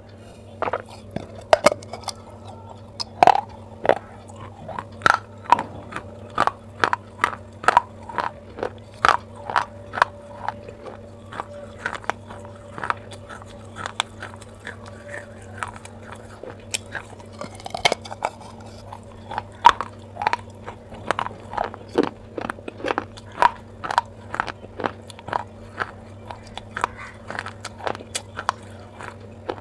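Crunching and chewing of a baked clay pot, close to the mic: a steady run of sharp, brittle crunches, about two or three a second, over a faint low steady hum.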